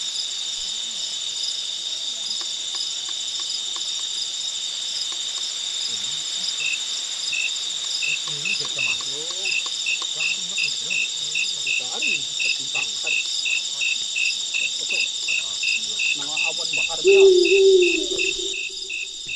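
Steady chorus of night insects, crickets trilling. A regular chirp of about three a second joins in several seconds in. Faint voices sit underneath, and a brief low hum comes near the end.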